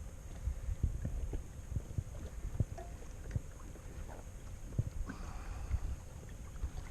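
Wind rumbling on the microphone aboard a fishing kayak, with scattered light knocks and taps against the hull and gear.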